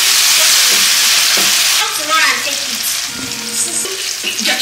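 Food frying in hot oil: a loud sizzle that drops to a quieter, steady sizzle a little under two seconds in.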